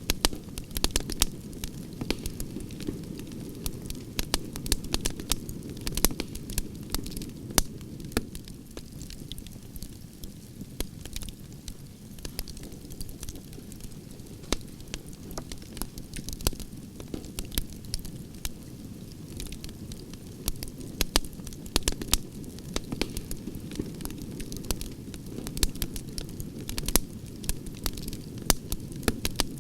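Wood campfire of burning logs, crackling with frequent irregular sharp pops and snaps over a steady low rumble of the flames.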